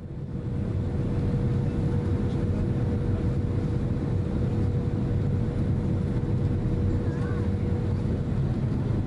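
Cabin noise of a Boeing 767-300ER heard from a seat over the wing as it lands: a steady low rumble and rush of air, with a thin steady whine that fades out near the end.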